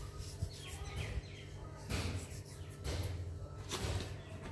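Soft rustling of fingers stirring salt into dry flour in a bowl, over a low steady hum, with a few faint bird chirps in the background.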